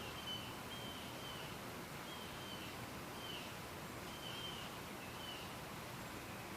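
A bird calling a short, slightly falling high chirp, repeated about once a second, over a steady outdoor background hiss.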